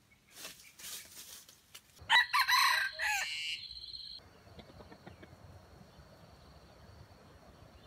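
Red junglefowl rooster crowing once, a short clipped crow lasting about a second and a half, starting about two seconds in.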